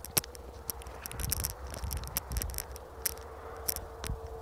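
A metal chain dog leash clinking and rattling in irregular light clicks as a large dog pulls on it, over a low rumble and a faint steady tone.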